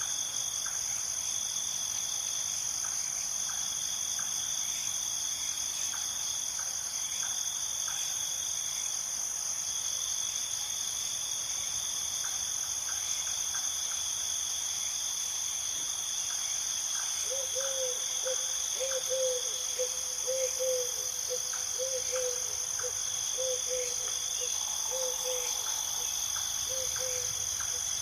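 Steady chorus of crickets: a continuous high trill with a second, pulsing band beneath it. From a little past halfway, a run of short, low repeated hooting notes joins in.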